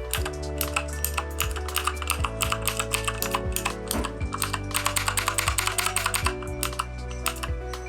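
Fast typing on a Keychron K2 mechanical keyboard with unlubed Gateron switches: a dense run of key clacks that is thickest near the middle. Background music with held notes plays under it.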